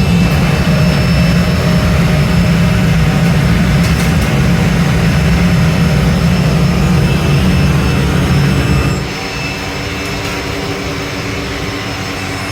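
Loud, steady factory machinery noise with a strong low hum; about nine seconds in the hum stops and the noise carries on at a lower level.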